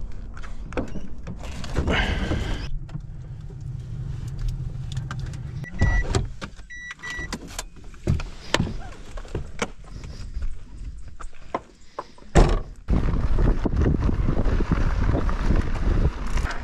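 A car's low, steady engine hum with knocks and handling noises, and two short electronic beeps in the middle. Near the end comes a loud knock, then a steady rush of wind and tyre noise as a mountain bike rolls along a gravel track.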